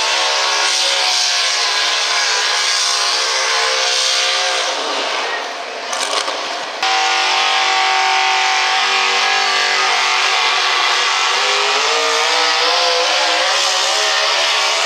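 Supercharged modified pulling-truck engines at full throttle under load while pulling a sled. About five seconds in, the engine note drops away into a rougher, quieter stretch. It then snaps back abruptly at a cut to a second truck, whose engine pitch wavers and climbs toward the end.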